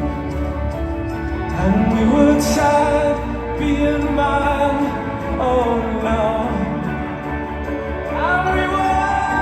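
Live music from a symphony orchestra playing with a band in an instrumental passage, sustained notes with a few sliding up into pitch.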